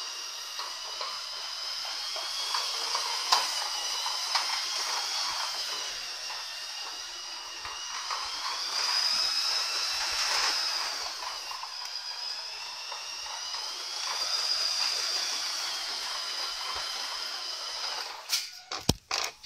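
Electric motor and gearbox of a radio-controlled truck whining as it drives, the high whine rising and falling in pitch with its speed. A few sharp knocks near the end.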